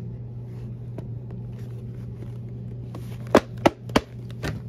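Steady low hum, with three sharp knocks in quick succession about three and a half seconds in and a weaker one just after, as the shoe is handled.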